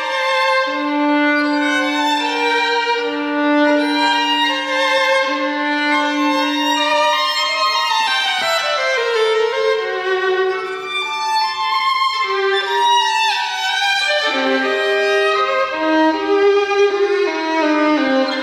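Unaccompanied solo violin: long held low notes with a second line above them, then quick runs falling and rising in pitch.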